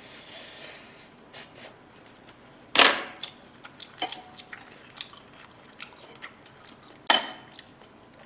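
Metal spoon clinking and scraping against a ceramic plate of fried rice, with two sharp loud strikes about three seconds and seven seconds in. Small quieter clicks and soft chewing sounds fall in between.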